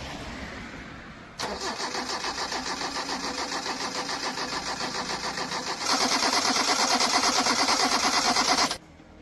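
A car engine being turned over on its starter in a start attempt: a steady, fast pulsing that gets louder about six seconds in, then stops abruptly.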